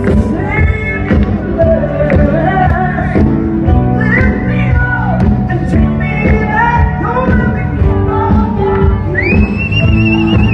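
Loud music with singing; near the end a voice holds a long high note with a wavering vibrato.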